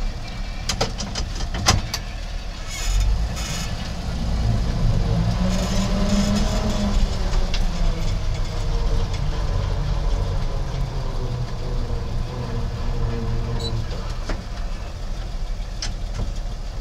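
1965 Chevy K10 pickup's engine running as the truck drives, heard from inside the cab. There are a few sharp clicks in the first two seconds, and the engine's pitch rises and settles back around six seconds in.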